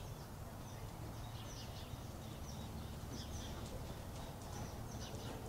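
A small bird chirping, faint short high calls repeated about every half second, over a steady low background rumble.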